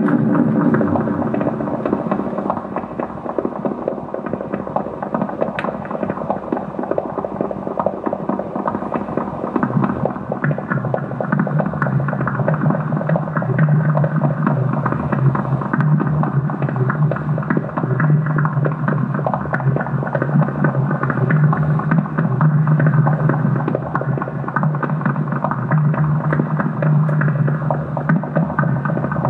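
Experimental drone sound: a dense crackling texture over a steady low hum, the hum growing stronger about a third of the way in.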